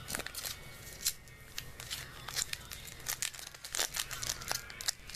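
Foil wrapper of a Bowman baseball card pack crinkling and tearing as it is handled and opened, with cards flicked and slid against each other; a string of irregular short crackles and clicks.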